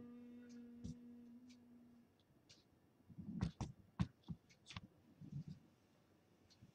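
A woman's steady, pitched yogic humming breath-out fades away about two seconds in. A second later comes a cluster of sharp clicks and soft thumps from the camera or phone being handled and moved.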